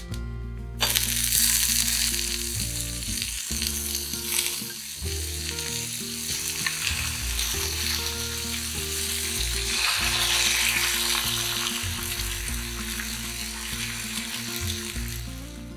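Bacon and eggs sizzling and frying in hot oil in a frying pan. The sizzle starts suddenly about a second in and carries on, with soft background music underneath.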